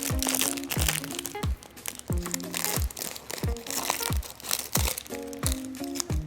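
Background music with a steady beat: a deep kick drum about every two-thirds of a second under sustained notes. Over it, plastic packaging crinkles as a squishy is unwrapped.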